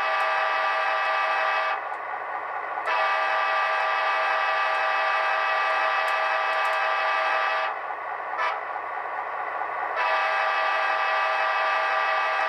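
Sampled diesel locomotive horn from the Soundtraxx Tsunami 2 sound decoder in an HO-scale Athearn GP15-1 model, sounded in long blasts: one ends about two seconds in, a long one runs from about three to eight seconds, and another starts about ten seconds in. The decoder's diesel engine sound continues faintly between the blasts.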